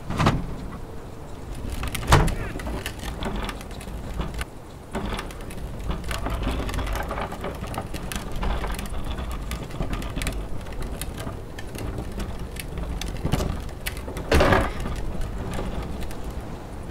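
Wheeled plastic garbage bin: a loud lid bang at the start and another knock about two seconds later, then the bin's wheels rattle steadily over concrete as it is pushed, with a further loud thump near the end.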